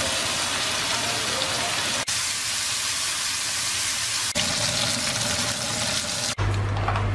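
Food sizzling in a frying pan, a steady hiss that breaks off abruptly about two and four seconds in and resumes each time. About six seconds in it stops for good, and a low steady hum takes over.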